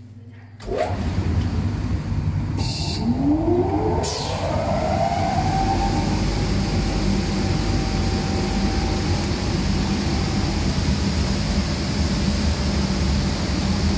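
Air-flotation blower of a CNC glass cutting table switching on about a second in and running steadily, its whine rising as the fan spins up and then holding at one pitch. A brief hiss comes just before the whine.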